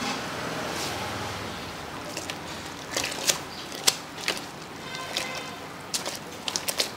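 Metal utensils clinking and clattering against an aluminium pot and noodle strainer, in a string of sharp irregular clinks from about two seconds in, over a steady hiss.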